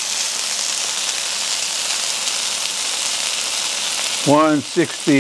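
Chicken kebab skewers in olive oil sizzling on a ridged grill pan, a steady high-pitched frying hiss. A man's brief voice sounds come in near the end.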